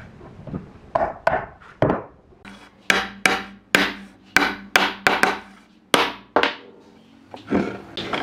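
Hammer striking pine boards, knocking them together onto metal pins to join the edges of a tabletop panel. About a dozen sharp blows at irregular spacing, some in quick pairs, with a low ring under the middle strikes.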